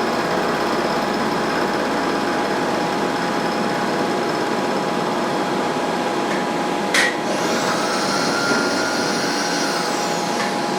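Milling machine running with its cutter taking a dry 40-thou pass across a nut, a steady grinding machining noise. A sharp tick about seven seconds in is followed by a higher, steady cutting tone lasting about three seconds.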